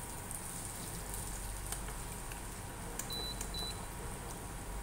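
Induction cooktop's control panel beeping twice, short high-pitched beeps about three seconds in, over the faint sizzle of corned beef and green beans frying in the pan and a few scrapes of the stirring spoon.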